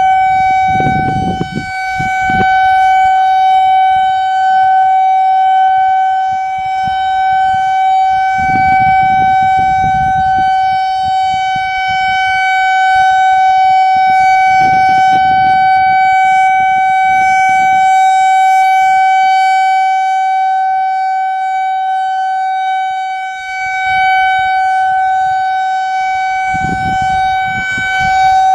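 Whelen electronic outdoor tornado warning siren sounding a steady alert tone held at one pitch on test. Its loudness swells and dips slightly.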